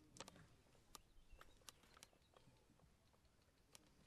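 Near silence, with a few faint, sharp clicks scattered through it.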